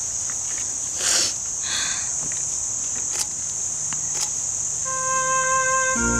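Steady high-pitched insect buzz, like crickets, with a brief rustle about a second in. Near the end, soft sustained music tones come in.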